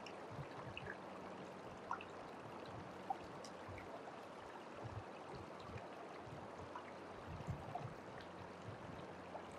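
Creek water running steadily over stones and through a small sluice box, with a few light clicks and knocks as wet gravel is scooped from a plastic bucket and poured into the sluice.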